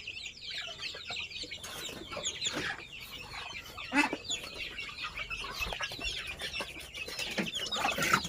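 Kampung chickens and chicks: many quick, high peeps going on continuously, with clucking and a few sharp knocks.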